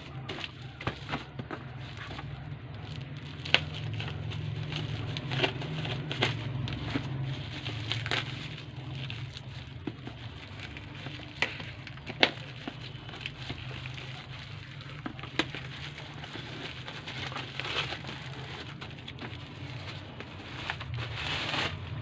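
Packaging being worked open by hand: crinkling and scattered clicks and knocks, over a steady low hum.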